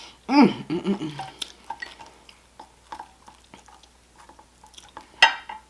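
Close-up eating sounds: chewing with scattered small clicks and taps of cutlery and dishes, a sharper click about five seconds in. A short hum of a voice comes near the start.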